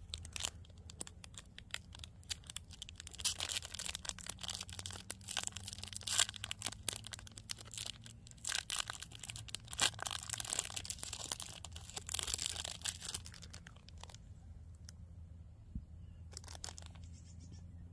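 Plastic wrapper of a snack bar crinkling and tearing as it is opened, dense crackling for about fourteen seconds, then only a few faint rustles.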